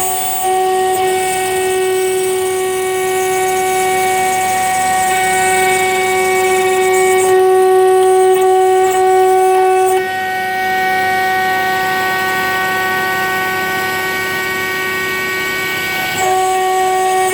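CNC router spindle at 24,000 rpm driving a 3 mm single-flute end mill through 2 mm 5005 aluminium: a steady high whine with a stack of overtones over a hiss of cutting. It drops a little in loudness after about ten seconds and comes back up near the end as the cut changes.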